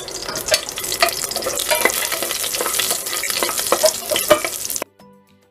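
Whole spices (bay leaves, star anise, cinnamon, cardamom and cloves) sizzling and crackling in hot ghee in an aluminium pressure cooker as they are stirred. The sound cuts off suddenly near the end, leaving faint music.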